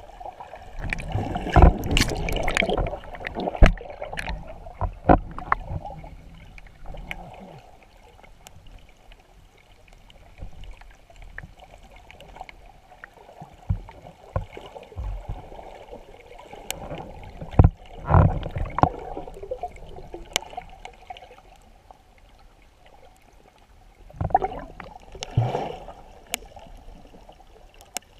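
Water heard underwater: a steady muffled rush with three bouts of bubbling, clicks and knocks, near the start, around the middle and near the end.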